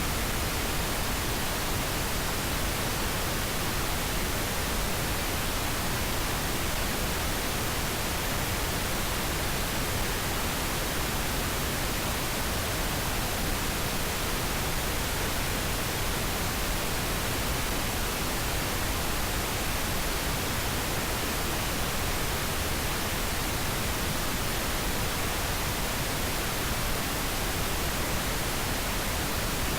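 Steady pink noise: an even, unbroken hiss across the whole range.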